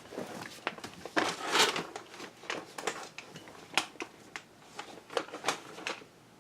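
A dog crunching and chewing a hard treat: irregular crunchy clicks and crackles.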